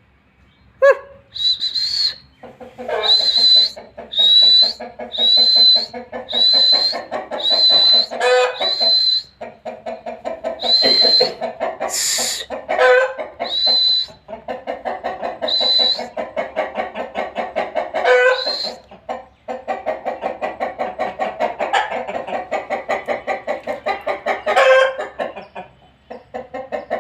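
Parrot-beak aseel roosters clucking in a rapid, pulsing run of several clucks a second, broken by a few louder cries. Through the first half, short high whistles come about once a second.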